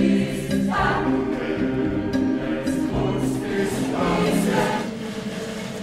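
A large mixed choir singing sustained chords with sung words, accompanied by a small instrumental ensemble.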